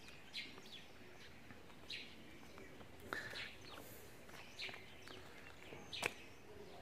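Small birds chirping faintly: about six short chirps, each falling in pitch, spaced a second or so apart.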